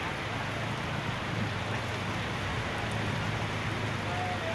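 Heavy rain pouring down steadily in an even, dense hiss.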